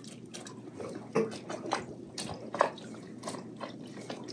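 Small irregular drips and splashes of water against the side of a boat's hull, over a low steady background hum.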